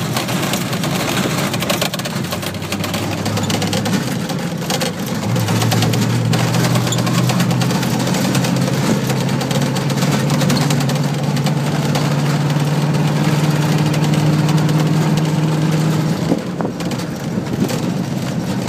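1980 Ford F-150 4x4 pickup's engine pulling steadily while driving a rutted dirt trail, heard from inside the cab over a constant rumble of tyres and road noise. The engine note rises about five seconds in, holds steady, then drops back near the end.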